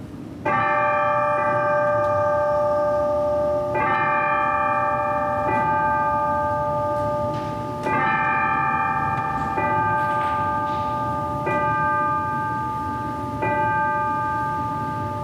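Bells struck at the elevation of the consecrated Host: about seven strikes a couple of seconds apart, each ringing on and slowly fading into the next.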